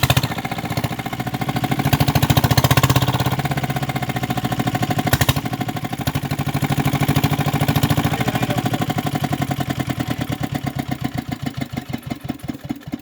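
Small engine running with a rapid, even beat of firing strokes, its pulses slowing and fading near the end.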